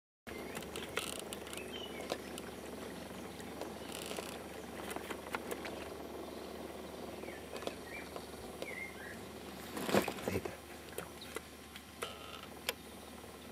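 Outdoor river ambience: a steady low hiss with scattered small clicks and a few short bird chirps, and one louder noisy burst about ten seconds in.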